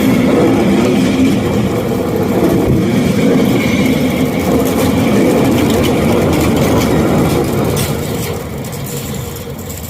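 Indian Railways diesel locomotive engine running loudly and steadily, growing quieter near the end.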